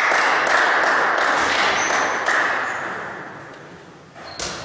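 Table tennis ball clicks, bat hits and table bounces, in quick succession. A loud, even rush of noise fills the first two seconds or so and fades away by about four seconds in.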